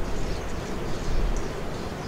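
Steady outdoor background noise with a low rumble and faint high chirps. No distinct handling sound from the fishing line stands out.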